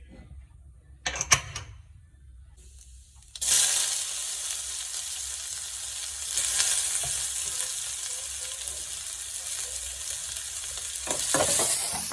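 A couple of sharp clicks, then a sudden start of loud sizzling frying in hot oil about three seconds in, which carries on steadily.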